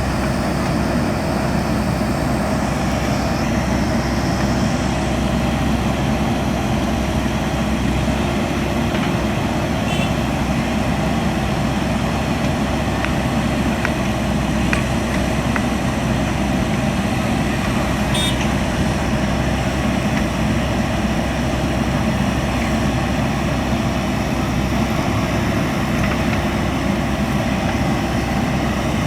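JCB backhoe loader's diesel engine running steadily, with a few faint metallic clinks.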